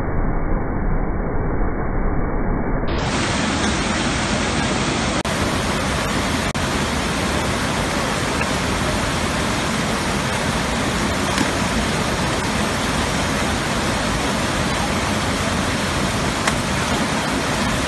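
Steady rush of water pouring over a dam spillway into churning whitewater.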